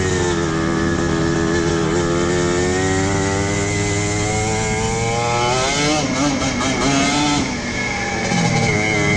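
Motorcycle engine heard from the bike being ridden along a dirt trail. Its pitch climbs steadily for a few seconds as the throttle is held, wavers and drops briefly about two-thirds of the way in, then settles at a steady pitch.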